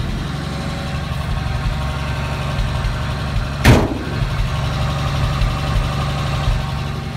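1959 Chevrolet Apache's 235 straight-six idling steadily, heard close to the tailpipe. A single sharp thump comes a little past halfway through.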